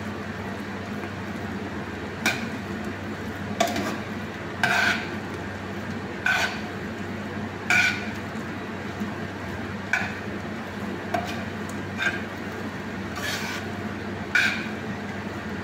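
Kitchen tongs clinking against a large coated pan while tossing noodles, a sharp clink roughly every second or so, over a steady low hiss.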